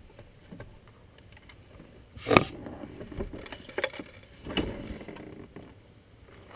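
Old carpet being pulled up off a pickup truck's cab floor: several short ripping and rustling bursts, the loudest about two seconds in, with a few smaller ones after.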